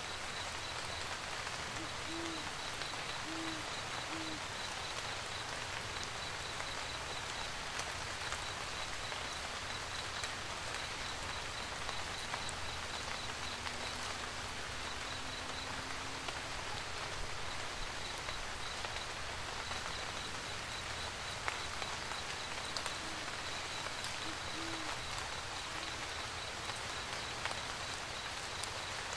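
Steady rain with an owl hooting: a few short low hoots a couple of seconds in, and another group of hoots near the end. A faint, high, rapidly pulsing chirp runs under the rain.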